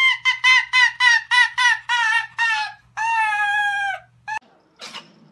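A small white canine giving a rapid run of high yelping calls, about three a second, then one long drawn-out call and a short last yelp. A few faint clicks follow near the end.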